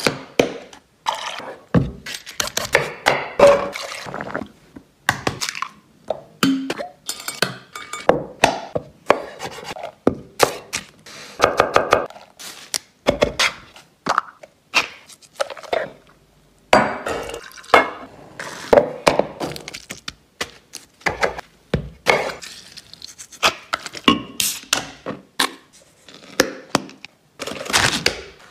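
A quick run of close-up food-preparation sounds: sharp clinks and knocks of food and utensils against glass bowls and dishes, with short thuds in between.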